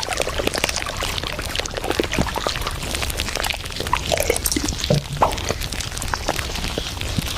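Café ambience sound effect: many small irregular clinks of cups and tableware, with liquid being poured, over a steady low hum.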